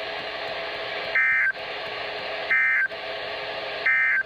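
NOAA Weather Radio SAME end-of-message data bursts: three short, buzzy two-tone digital bursts about 1.4 seconds apart, marking the end of the weekly test broadcast. They are heard through a weather radio receiver over its steady static hiss.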